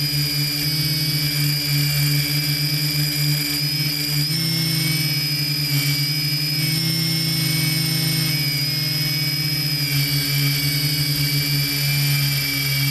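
Multirotor drone's propellers and motors running in flight, heard from the drone itself: a pulsing low hum under a high whine, both shifting in pitch every few seconds.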